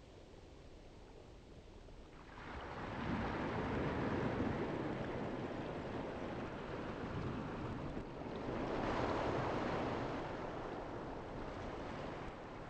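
Rushing wind-and-water noise that swells in about two seconds in, dips briefly around eight seconds, swells again and eases near the end.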